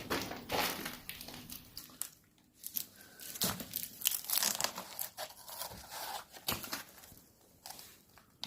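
Irregular rustling and crinkling noises, coming and going in short bursts with brief quiet gaps.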